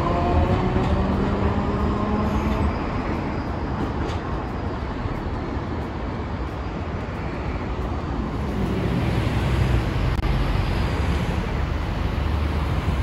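Hiroden 700-series streetcar's motor whine rising in pitch as it accelerates away, fading out within the first couple of seconds. Steady road traffic rumble follows, with a passing vehicle swelling louder near the end.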